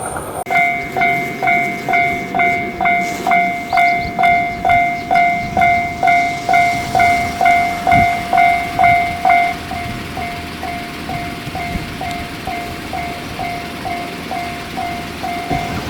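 Japanese railway level-crossing warning bell ringing its 'kan-kan' tone about twice a second. A little over halfway through it turns fainter and thinner but keeps ringing at the same pace.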